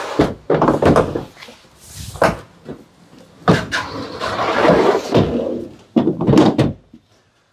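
Heavy plastic DECKED drawer being worked into its housing in a pickup bed: a series of knocks and clunks, with a longer sliding scrape in the middle, as the drawer and its rollers are pushed and hung in.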